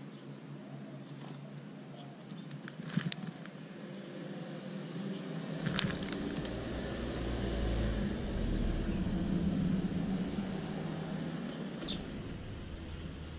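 House sparrow sand-bathing in bark mulch: wing flutters and sharp ticks of mulch being flicked about, twice. A passing car's low rumble swells through the middle and fades, and is the loudest sound.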